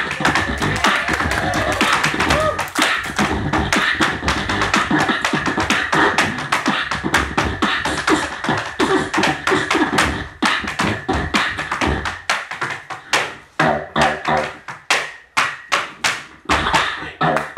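Tap shoes striking a wooden tap board in fast, dense rhythms, with a beatboxer's vocal percussion over a microphone. About twelve seconds in, the taps thin out to single strikes spaced apart.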